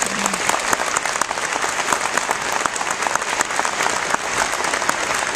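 Large audience applauding steadily: many hands clapping in a thick, even patter.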